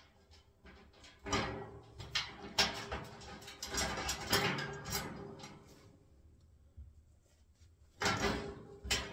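Steel bolts and parts clinking and rattling against a steel wheelbarrow tray and its stays as bolts are pushed through and fitted, the metal ringing on after the knocks. The clatter stops for a couple of seconds and starts again near the end.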